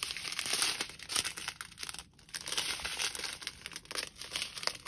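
Small clear plastic bags of diamond-painting drills crinkling as they are handled and shuffled from hand to hand. There is a brief pause about two seconds in.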